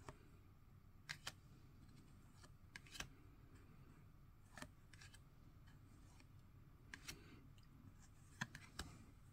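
Trading cards being handled and flicked through: about a dozen light, sharp clicks and snaps of card stock, some in quick pairs, over a near-silent room.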